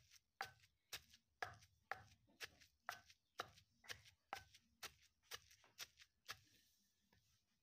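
Stone pestle pounding and mashing fish with spices in a stone mortar, knocking at about two strokes a second, stopping about six seconds in.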